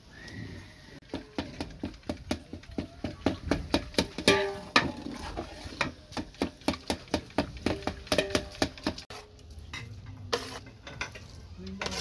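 Long-handled metal ladle knocking and scraping against a large aluminium cooking pot while stirring tomatoes frying in oil, in a steady rhythm of about three or four clanks a second that stops about nine seconds in.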